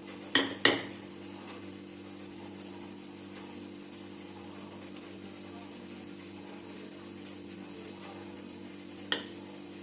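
Steady low hum of a kitchen appliance or fan, made of a few even tones. Two sharp metallic taps come under a second in and one more near the end: a steel spoon knocking against the steel tin of chana dal stuffing.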